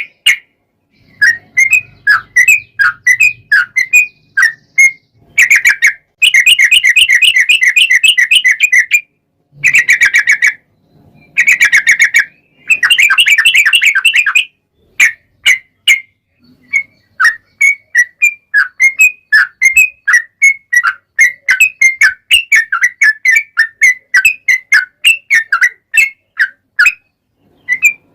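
Yellow-vented bulbul (trucukan) singing: bubbly chirping notes around one pitch, with several long, fast trilled runs in the first half, then a quick string of separate chirps.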